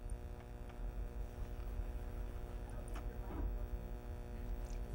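Steady low electrical mains hum, with a faint click about three seconds in.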